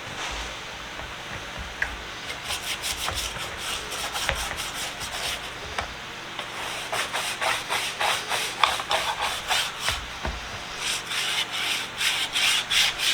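Hand-scrubbing a metal tool-set tin in soapy water: quick back-and-forth rubbing strokes, about three a second. They start about two seconds in, pause briefly midway, and grow stronger toward the end. This is the grime being cleaned off the case.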